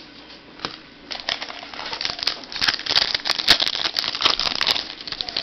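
Football trading cards being handled close to the microphone: dense crinkling and rustling with many small sharp clicks, starting about a second in and getting louder.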